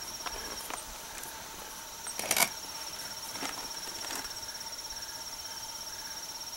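Insects trilling steadily in a fine, even pulse, with a few small handling clicks and one sharper click a little over two seconds in as a cap-lock rifle is handled.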